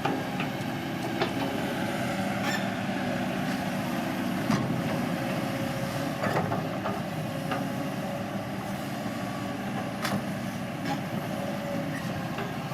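Crawler bulldozer's diesel engine running steadily under work, with a few sharp metallic clanks scattered through it.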